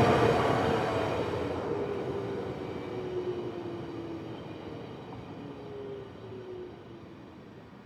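Commuter train heard at a distance, its rumbling rail noise dying away steadily, with a few faint tones sliding slowly lower.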